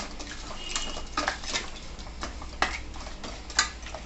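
Spoon stirring crushed crabs in a pan of masala, knocking and scraping against the pan in about half a dozen irregular clicks as they are sautéed.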